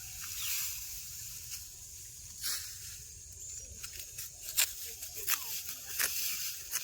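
Dry rice straw rustling and crunching, with several sharp crackling snaps over a steady high hiss.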